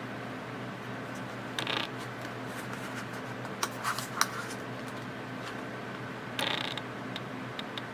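Camera lens autofocus motor clicking and whirring: two brief buzzing bursts and a few sharp clicks over a steady low hum.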